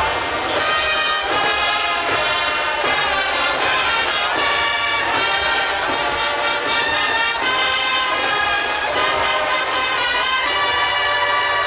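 A Spanish Holy Week agrupación musical, a brass band of trumpets and trombones, plays a slow processional march at a steady full volume.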